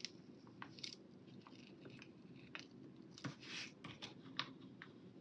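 Small scissors snipping paper and sticker sheet in a few faint, scattered clicks, with a brief rustle of paper sliding a little past three seconds in.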